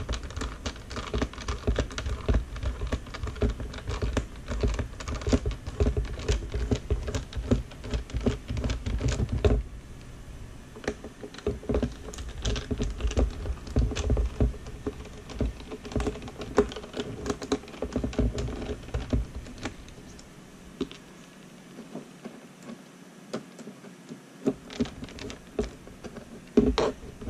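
A small screwdriver turning out the screws in the back of a plastic Turnigy TGY-i6 RC transmitter case, giving many small clicks and plastic knocks as the case is handled on a desk. The clicking is busy and louder for about the first ten seconds, then sparser and quieter.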